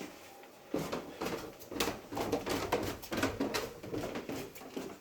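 Footsteps going down a flight of stairs: a steady run of footfalls about two a second, starting about a second in.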